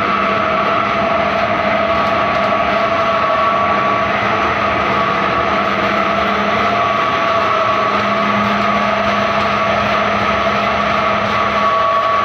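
Flat die wood pellet mill running steadily under load, pressing sawdust into pellets: a loud, even mechanical drone with a constant whine.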